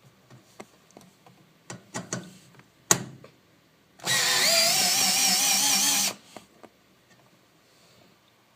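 DeWalt 12-volt cordless drill driving a hex-head screw, its motor whining for about two seconds with a slightly wavering pitch. Before it come a few light clicks and one sharp knock.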